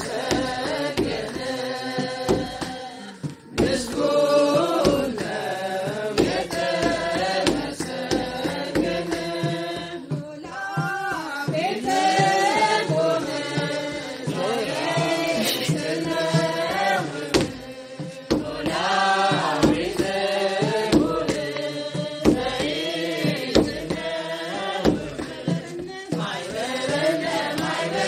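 A group of voices singing an Ethiopian Orthodox hymn together in a chant-like melody, with a large kebero drum beating a steady rhythm under it.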